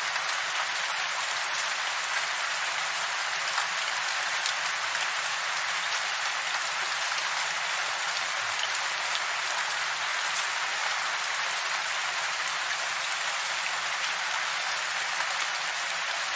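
Steady rain falling: a dense, even patter of drops, with an occasional sharper single drop tick.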